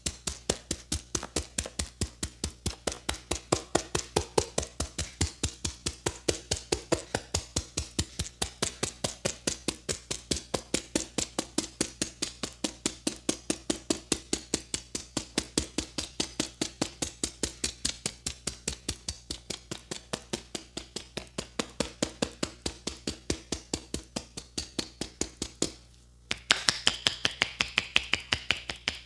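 Rapid, rhythmic hand percussion of a champi massage: a barber's hands tapping and slapping on a client at about five or six strokes a second. The strokes stop briefly near the end, then resume sharper and brighter.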